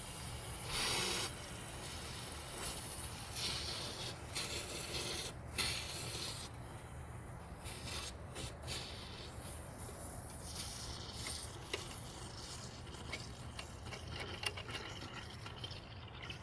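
Irregular rubbing and scraping of hand work on engine parts, with scattered small clicks and knocks in the later part.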